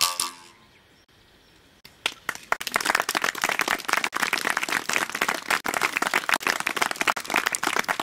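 The last struck note of a pitched bamboo instrument fades out. After a short pause, about two seconds in, a dense, rapid clicking and rattling of dry bamboo starts and keeps going.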